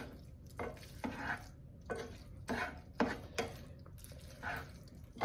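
A spoon stirring cooked macaroni and cheese in a metal pot: a series of short scraping strokes, about two a second.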